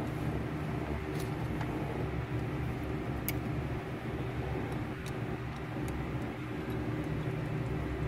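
Steady low hum of a workshop background, with a few faint light clicks of hand tools being picked up and handled.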